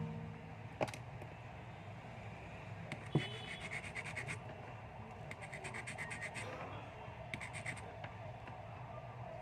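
Scratching at a USB charging cable during repair: a couple of sharp clicks, then three bursts of rapid scratching strokes, over a low steady hum.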